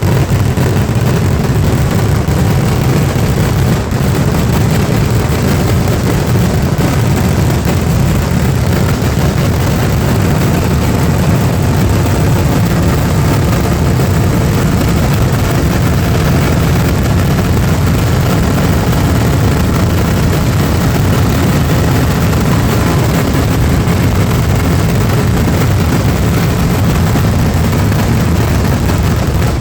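A dense, unbroken fireworks barrage whose blasts run together into a continuous low rumble, steady in loudness, with no gaps between the bursts.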